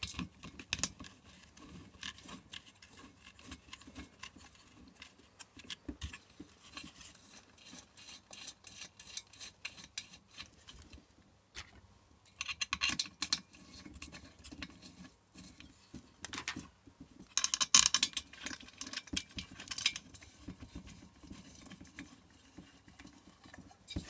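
Small metallic clicks and rattles of steel bolts and locking washers being handled and screwed into the metal housing of a diesel heater's motor unit. There are denser runs of quick clicking about half way through and again about three-quarters of the way through.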